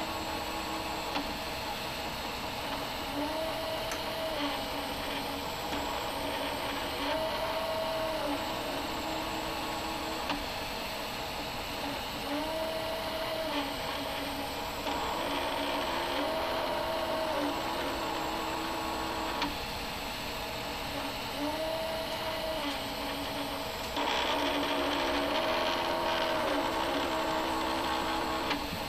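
Diode laser engraver rastering a photo: the gantry's stepper motors whine, rising in pitch, holding, then falling back on each long pass of the head, every few seconds, over a steady rushing noise that grows louder near the end.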